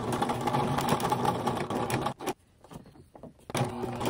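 Domestic electric sewing machine fitted with a walking foot, stitching through layered glove fabric in two runs: about two seconds of steady stitching, a brief jog, a pause, then stitching again from about three and a half seconds in.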